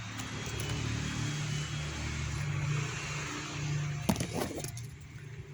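A passing road vehicle: a steady rumble and rushing noise that swells and then fades, with a sharp click about four seconds in.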